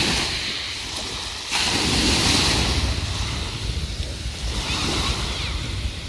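Small sea waves breaking and washing over a pebble beach, a wave surging in louder about a second and a half in, with wind rumbling on the microphone.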